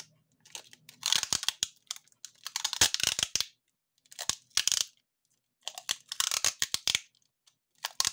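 Clear packing tape being pulled off the roll and wound around a battery pack: noisy crackling peels in about five bursts of half a second to a second each, with short pauses between.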